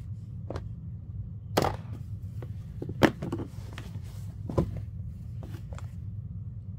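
Handling noise as a blue plastic tub is wiped out with a cloth towel: a few sharp knocks and clicks, the loudest about three seconds in, over a steady low hum.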